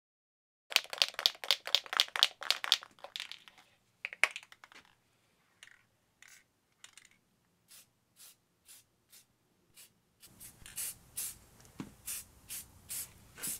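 Aerosol spray can being shaken, its mixing ball rattling: a fast run of rattles for about three seconds, then slower, spaced clicks about twice a second.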